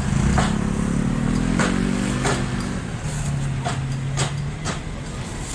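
A motor vehicle engine running close by, its pitch rising slightly and then settling to a steady hum. Several sharp knocks are scattered through it.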